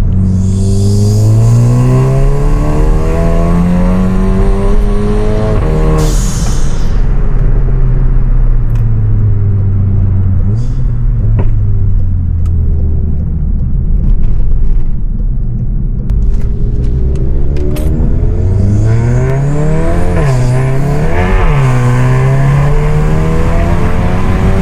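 Straight-piped, decat turbocharged 2.0-litre four-cylinder of a stage 3 Volkswagen Golf GTI Performance under hard acceleration, the exhaust note climbing steadily in pitch. About six seconds in it breaks off with a burst of hiss as the throttle closes, the turbo flutter the car is tuned for. It then runs lower for a while before climbing hard again, the pitch dropping sharply and rising twice near the end as the gears change.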